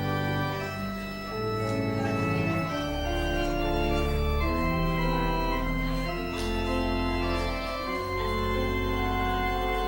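Organ playing a slow prelude: sustained chords over deep held bass notes, the harmony changing every second or so.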